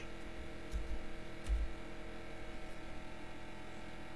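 Steady electrical mains hum, a low buzz with a stack of even tones, with two soft low thumps in the first two seconds.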